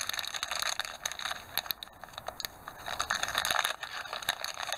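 Thin clear plastic bag crinkling and crackling as hands work resin model wheels around inside it, easing a little about two seconds in before picking up again.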